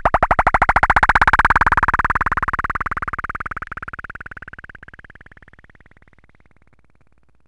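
Synthesized sound effect: a rapid pulsing electronic tone whose pitch slowly rises, loudest about a second in, then fading away over several seconds.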